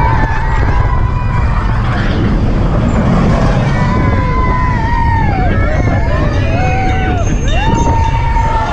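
Seven Dwarfs Mine Train roller coaster in motion, heard from the front seat: a loud, steady rumble of wheels on track and wind on the microphone. Over it come several long high-pitched sounds that rise, hold and fall away.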